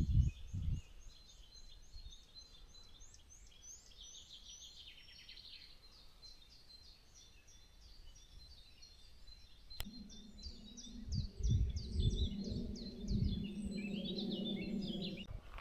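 Small songbirds singing, with fast repeated high chirps. About two-thirds of the way through a sharp click is heard, followed by a steady low hum and some low thumps that rise over the birdsong.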